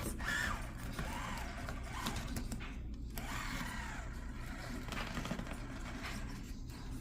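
Small electric motor and gear drivetrain of an RC crawler whining, its pitch rising and falling in short swells as the throttle is worked.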